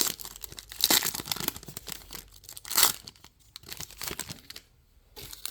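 Crinkling and tearing of a trading-card pack's foil wrapper as a pack is handled and opened, in several short bursts over the first three seconds, then only faint rustling.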